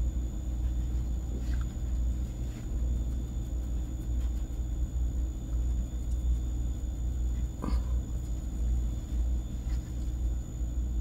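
Steady low background rumble, with a few faint clicks, the clearest about eight seconds in.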